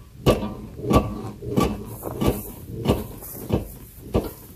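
Rear of a Land Rover Defender bouncing on its springs with a clunk at each bounce, regular knocks about three every two seconds. Both rear shock absorbers have broken lower mounting bolts at the axle, so the rear end bounces undamped.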